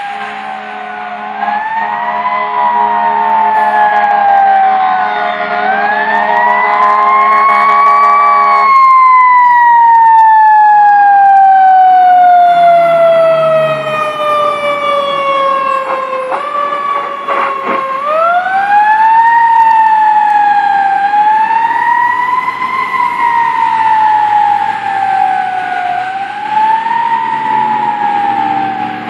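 Fire ladder truck's siren wailing, rising and falling. A steady horn blast sounds under it for the first nine seconds or so and cuts off. The siren then winds slowly down over several seconds and winds back up into its rising-and-falling wail.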